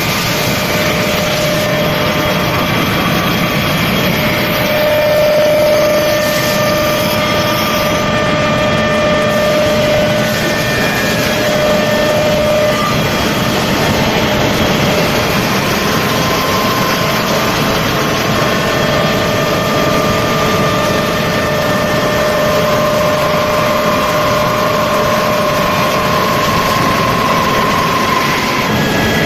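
CNC wood-turning lathe running and cutting a spinning wooden blank: steady loud machine noise with held tones that shift in pitch now and then.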